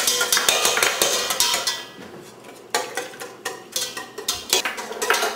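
Metal kitchen utensils clinking and clattering against a pot or mixing bowl: quick, irregular knocks, with a brief lull about two seconds in.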